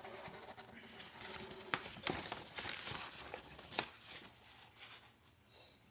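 Packaging being handled: rustling with scattered light clicks and knocks as items are pulled from the box one-handed.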